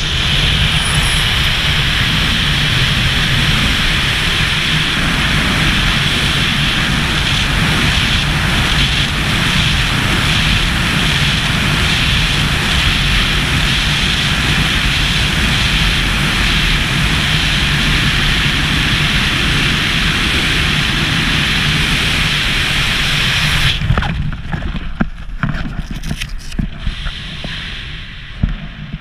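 Loud, steady rush of wind buffeting the camera's microphone during a wingsuit flight. About 24 seconds in it drops off sharply as the parachute opens, leaving weaker, gusty wind and fluttering under the canopy.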